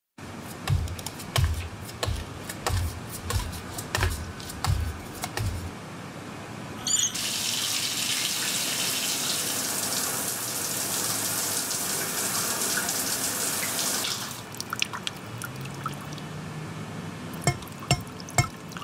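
Shower running: a brief squeak about seven seconds in, then the spray hisses steadily for about seven seconds and stops. A low hum rises as the water dies away, followed by a few sharp clicks near the end. Before the shower starts there is a row of low thuds, a little under one a second.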